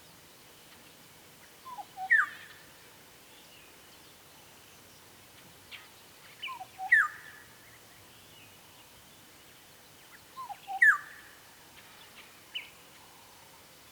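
Black-headed oriole calling three times, a few seconds apart. Each phrase is a couple of short low notes followed by a loud downward-sliding note.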